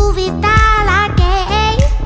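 Background music: an upbeat song with a high sung melody over a steady beat of about two kick-drum thumps a second.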